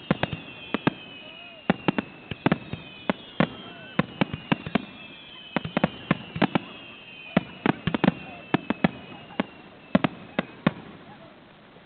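Fireworks display: a rapid, irregular run of sharp bangs from bursting shells, mixed with several whistling fireworks whose pitch slowly falls. The bangs stop shortly before the end.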